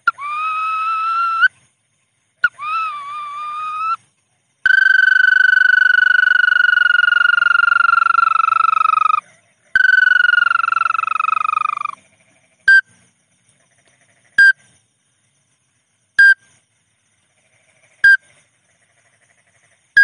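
Lure call of the burung bawangan, a rice-field bird: two short rising notes, then one long whistled note of about four seconds that slowly falls in pitch, a shorter falling note, and four short pips about two seconds apart.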